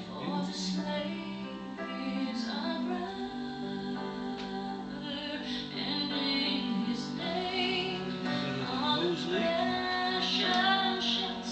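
Background music: a song with a woman singing over sustained accompaniment.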